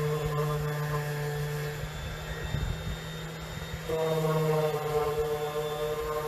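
Music of long, held chant-like tones, fading in the middle and resuming on a new pitch about four seconds in.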